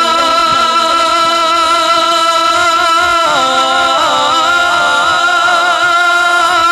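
A man singing a naat into a microphone, holding one long steady note for about three seconds, then breaking into wavering, ornamented turns of pitch.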